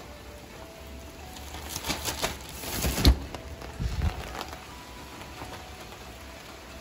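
Clear vinyl umbrella rustling as it is pushed open, ending in a sharp click about three seconds in as it locks open, followed by a couple of low thumps, over steady rain.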